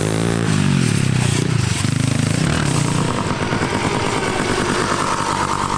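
Small kids' dirt bike engine running as the child rides along the track, its pitch dropping in the first moment and then holding fairly steady.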